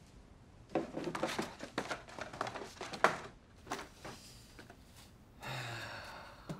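Paper rustling and crinkling as sheets in a card folder are handled and leafed through. A dense run of rustles starts about a second in and lasts a couple of seconds, followed by a few lighter ones. Near the end there is a soft breathy sound about a second long.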